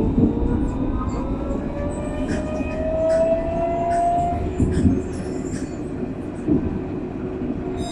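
Alstom Citadis 302 tram running, heard from the driver's cab: the electric traction drive whines, rising steadily in pitch as the tram gathers speed until about four and a half seconds in, then fades, over a steady rumble of wheels on rail with a few short knocks.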